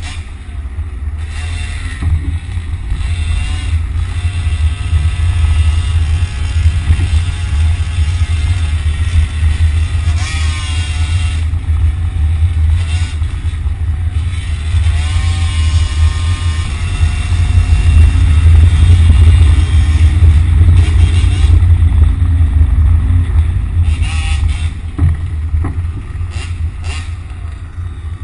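Road traffic engines over a heavy low rumble, with a motor whine that rises and falls in pitch several times as the RC car drives and accelerates. It is loudest about two-thirds of the way through.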